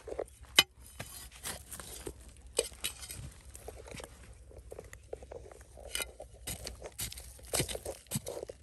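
Irregular light clicks and clinks of small hard objects being handled, the sharpest about half a second in.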